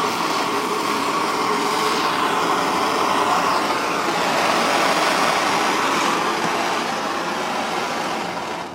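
Gas soldering torch running with a steady hiss and rush, heating a gas tank to sweat-solder a new filler cap; it dies away near the end.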